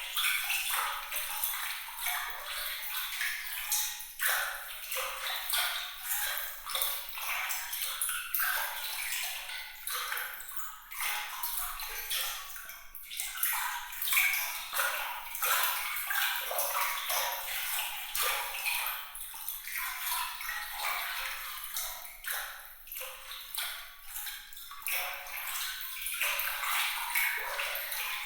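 Bright, glittering trickle of running water: a continuous, uneven patter of small splashes and drips with little high pings, with no low rumble beneath.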